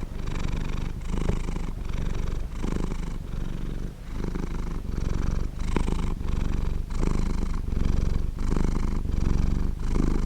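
Domestic cat purring close to the microphone, a continuous low purr that swells and eases with each breath, in and out, about once every 0.7 seconds.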